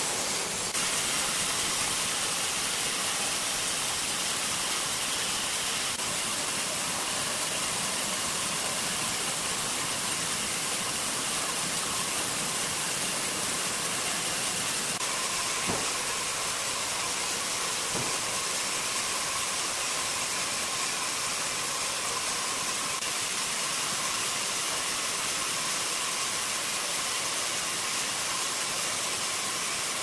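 Large horizontal band sawmill running with its blade spinning free ahead of the cut: a steady hissing whir. A faint steady whine joins about halfway, with two light knocks close together.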